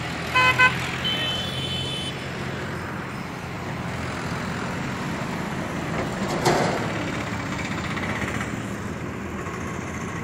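Road traffic on a busy seafront road: a vehicle horn gives two short honks just after the start, over a low engine rumble. Steady traffic noise follows, with a vehicle passing about six and a half seconds in.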